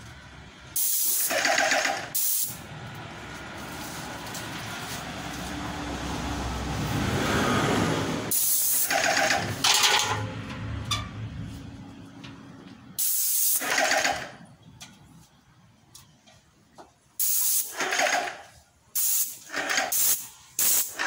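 Airless paint spray gun hissing in repeated trigger bursts of about a second each as paint is sprayed onto a wall. Between the bursts a lower rumble slowly swells and fades.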